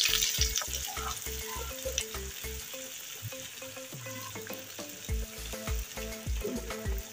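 A breadcrumb-coated bread pocket deep-frying in hot oil, the oil sizzling and bubbling around it; loudest just as it goes in, then settling into a steady sizzle.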